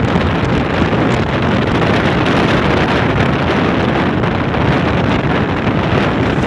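Steady wind rush over the microphone on a moving motorcycle, with the engine of a Bajaj Pulsar NS160 running beneath it.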